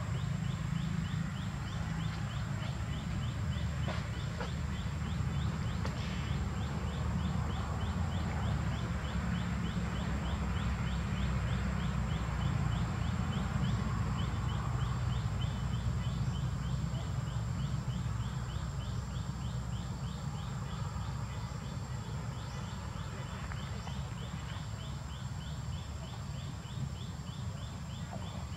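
Outdoor ambience dominated by a steady low rumble, typical of wind on the microphone. Over it runs a faint, even, high ticking call, several ticks a second, from a creature in the trees.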